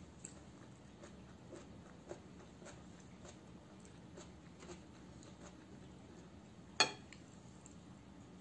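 Faint eating sounds of a person eating tuyo (dried salted fish) and rice by hand: small scattered clicks of chewing and of fingers picking the dry fish apart. One sharp click near the end is much the loudest.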